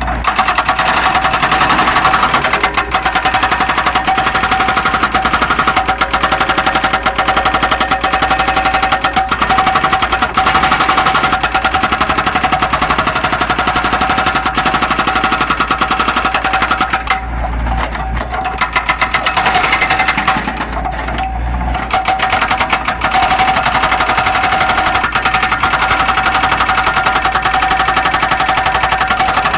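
Zoomlion excavator at work: its diesel engine runs under load with a fast, even clatter and a steady whine, easing off briefly twice past the middle.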